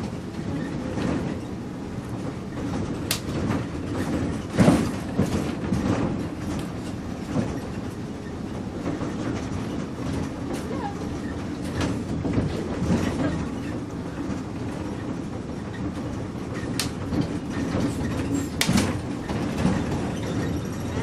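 Inside a moving bus: a steady low rumble of engine and road with the body rattling throughout, broken by several sharp knocks and clanks, the loudest about four and a half seconds in.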